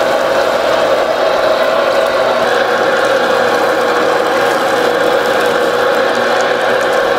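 Motorised fish skinning machine running with a steady mechanical whirring drone, its water-sprayed toothed roller drawing the skin off a fish fillet.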